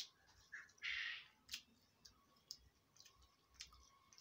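Close-up mouth sounds of a person chewing a mouthful of food eaten by hand: soft, sharp lip-smacking clicks about once a second, with a short breathy slurp about a second in.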